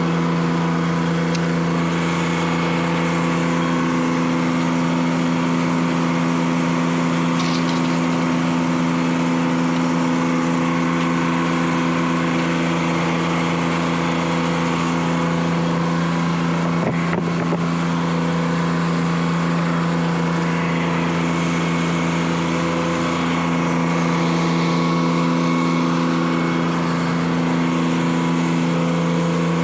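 Detroit Diesel 3-71 three-cylinder two-stroke diesel running steadily at a constant speed, with a single brief knock about 17 seconds in.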